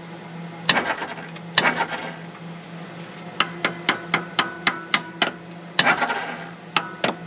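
Hammer tapping on the sticking intake valves of a 1950 Ford flathead V8, knocking them back down so they seat after the engine sat for 50 years. The sharp metal strikes come a few at a time, then in a quick run of about five a second through the middle, several with a short ring.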